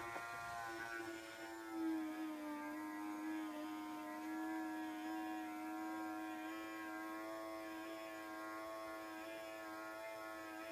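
Small electric motor whining at a steady pitch as it slowly drives a model ship's bow visor open. It starts suddenly, and its pitch sags briefly about two seconds in.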